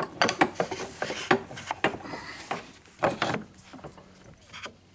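Small pieces of timber knocked and slid against each other on a wooden bench hook and workbench: a quick, irregular run of light wooden clicks and knocks for the first three seconds or so, then one more tap near the end.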